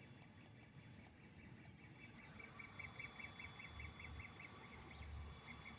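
Near silence with a few faint clicks, then a faint, high pulsing or chirping repeating about six times a second from a little before halfway to near the end.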